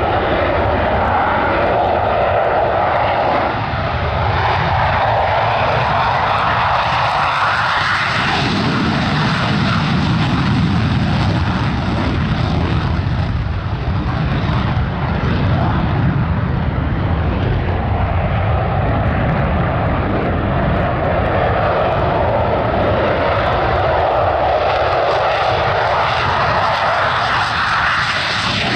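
F-16 fighter jet's engine roaring steadily and loudly, its tone slowly shifting higher and lower.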